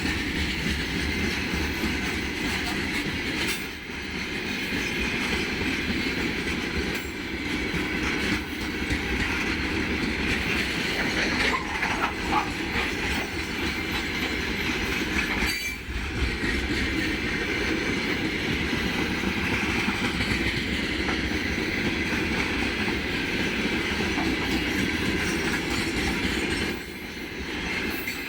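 Freight train rolling past behind a VL11M electric locomotive: steady wheel-on-rail rumble with the clatter of wheels over rail joints, and a brief wheel squeal around the middle.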